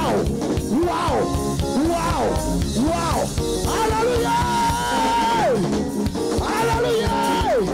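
Live band playing an instrumental passage: a drum kit keeps a steady beat under a lead melody that keeps sliding up and down in pitch. About four seconds in, the lead holds one long wavering note, then slides down.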